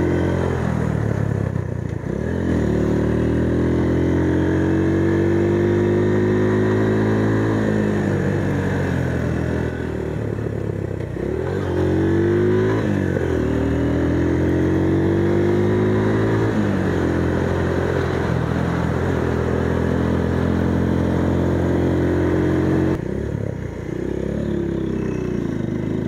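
Motorcycle engine running on the move, its revs climbing and falling back several times with the throttle.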